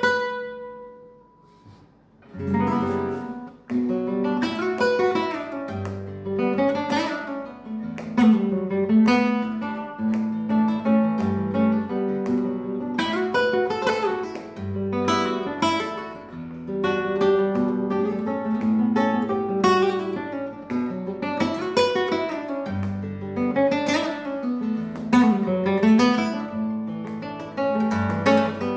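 Nylon-string Spanish guitar with an oval soundhole and an internal air chamber, played as a sound test. A single held note fades at the start. After a short pause, about two and a half seconds in, continuous playing begins: melodic runs mixed with hard strummed chords.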